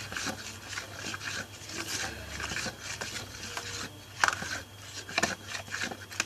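Irregular rubbing and scraping with scattered sharp clicks, from hands handling slime-making materials, with a sharper click about four seconds in and another about a second later.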